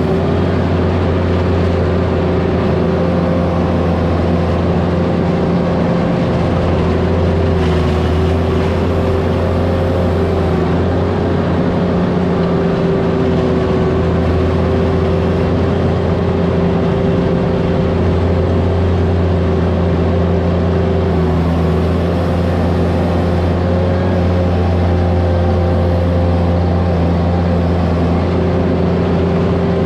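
Vermeer mini skid steer's engine running at a steady, high speed, with a constant droning pitch that shifts only slightly.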